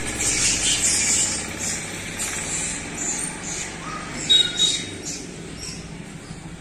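Birds chirping: many short, high chirps in quick runs, loudest at the start and again a little past the middle, over a faint low steady hum.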